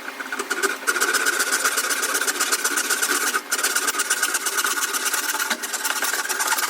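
Hand saw cutting across a wooden board along a marked line, a fast, even rasping rhythm with a brief break about halfway through.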